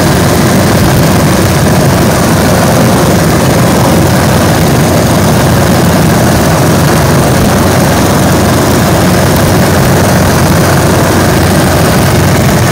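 Small single-engine propeller plane's engine and propeller, heard from inside the cockpit: a loud, steady cruise drone.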